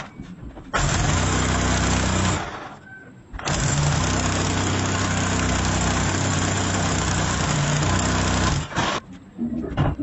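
Electric drill boring into the wall to take a wall plug for a pipe clip: a short run under two seconds, a pause, then a steady run of about five seconds, the motor's hum under the noise of the bit cutting.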